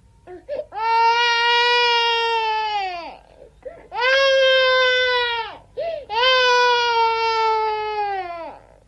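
Baby crying sound effect: three long wails of about two seconds each, the pitch holding steady and then dropping at the end of each. Short gasping sobs come between them.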